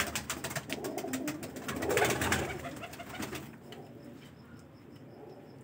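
Teddy pigeons cooing, with a fast run of sharp clicks and rustles over the first three seconds that stops abruptly. After that only soft, low coos are left.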